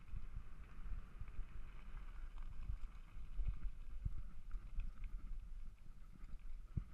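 Mountain bike rolling fast over a bumpy dirt singletrack, heard from a camera on the bike or rider: a constant low rumble with many irregular knocks and rattles from the trail, and wind buffeting the microphone.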